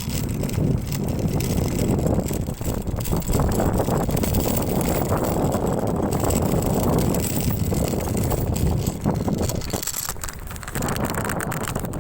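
Suzuki Skydrive Crossover scooter running under way, with steady wind noise on the microphone; it eases off a little near the end.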